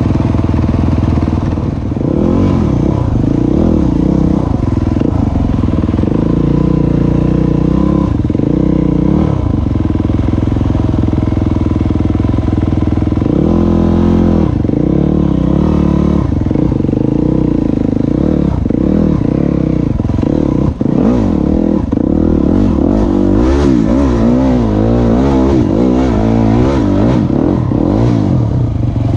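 Enduro dirt bike engine running under the rider, its pitch rising and falling over and over as the throttle is worked on a rough, rocky trail.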